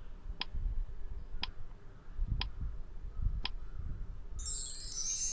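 Countdown timer sound effect: four ticks a second apart, then a bright shimmering chime about four seconds in as the count reaches zero, marking time up for the answer.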